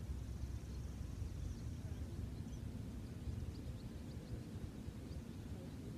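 Outdoor ambience: a steady low rumble with faint, scattered bird chirps, and a thin high trill in the first couple of seconds.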